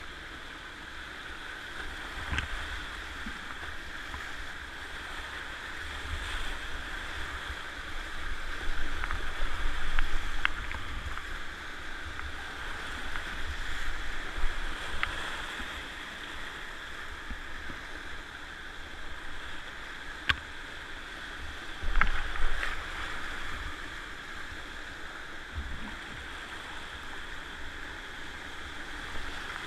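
Rushing whitewater of a river rapid heard from a kayak running it: a steady wash, with louder surges about ten seconds in and again about twenty-two seconds in, and a few sharp knocks.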